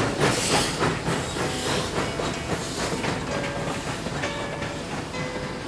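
Train running with an evenly repeating rhythmic clatter that slowly fades away. Faint held musical notes begin to come in about halfway through.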